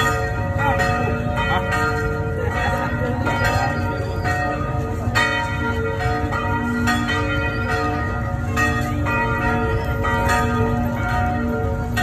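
Church tower bells pealing: several bells struck in quick, irregular succession, their tones ringing on and overlapping one another.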